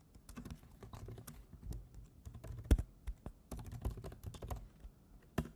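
Typing on a computer keyboard: a quick, uneven run of key clicks as a terminal command is entered, with a few keys struck harder, one about halfway through and one near the end.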